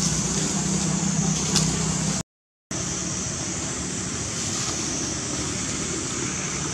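Steady outdoor background noise with a high hiss and, for the first two seconds, a low hum. It cuts out to silence for about half a second at an edit, then carries on steadily.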